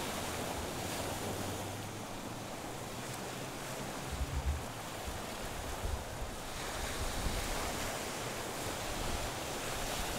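Small waves breaking and washing up over a seaweed-covered beach, with wind buffeting the microphone in a few low gusts.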